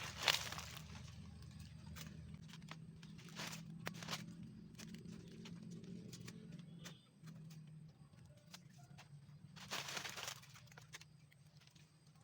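Dry leaves and litter rustling and crackling as they are cleared away, with scattered snaps and louder bursts of rustling near the start and about ten seconds in. A low steady hum runs underneath.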